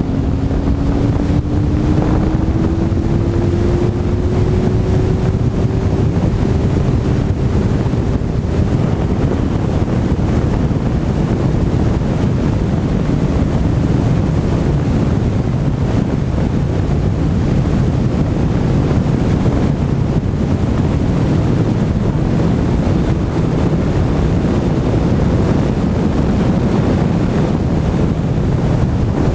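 Heavy wind buffeting on a GoPro microphone on a McLaren 12C at track speed. The 3.8-litre twin-turbo V8's note climbs steadily in pitch over the first several seconds as the car accelerates out of a corner onto a straight, then sinks into the steady wind rush.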